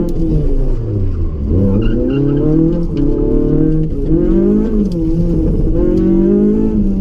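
Proton Wira's 1.6-litre 4G92P inline-four engine, heard from inside the cabin, revving up and falling back several times as the car is driven hard between turns, with dips about a second and a half in and again near five seconds.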